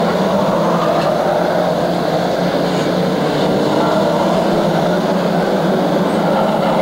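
A pack of saloon stock cars racing, many engines running together in a steady, dense drone.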